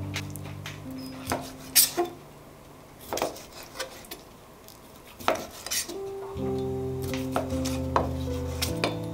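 Kitchen knife chopping cooked octopus tentacle on a plastic cutting board: about nine sharp, unevenly spaced knocks of the blade hitting the board. Background music with sustained low notes plays under it, dropping out for a few seconds in the middle.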